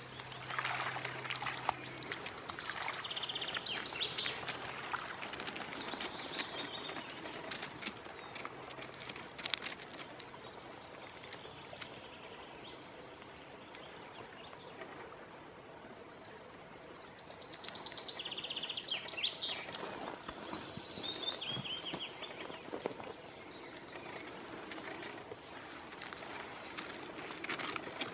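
Outdoor ambience in which a songbird sings a high, trilling phrase that falls in pitch, twice: a few seconds in and again about halfway through. Scattered rustling and short crunches come from a dog moving through grass and over gravel.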